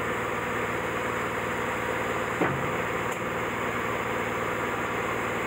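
Steady hum of powered-up industrial machinery, holding several even tones at a constant level. A faint click comes about three seconds in.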